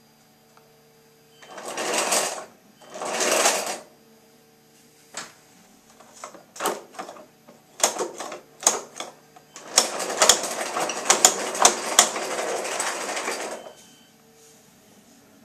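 Plastic gears of a motor-driven model 4-speed sequential gearbox whirring and rattling. There are two short runs, then a string of clicks as the shift mechanism is worked, then a longer run of about four seconds full of clicks that stops suddenly.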